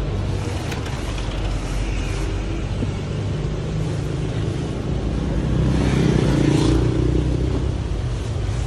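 Motor vehicle engine running steadily, swelling briefly around six to seven seconds in, with a few light knocks from cardboard boxes being handled.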